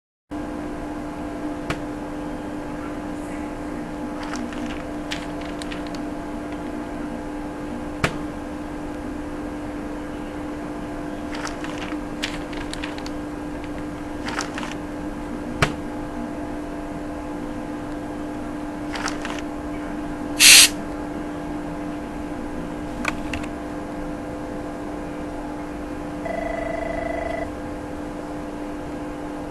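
Office room tone with a steady electrical hum, broken by scattered soft clicks and rustles. A short, loud hiss comes about twenty seconds in, and a brief steady electronic beep about twenty-six seconds in.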